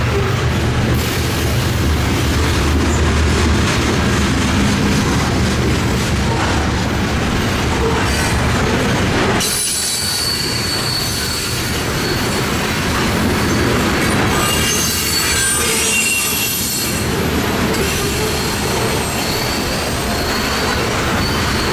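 Freight train cars rolling past with steady wheel-on-rail noise. Thin, high-pitched wheel squeal comes in from about halfway through.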